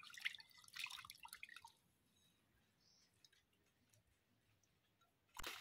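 Faint water splashing and dripping as fish pieces are rinsed by hand in a clay bowl, for the first second or two, then near silence. A brief louder noise comes near the end.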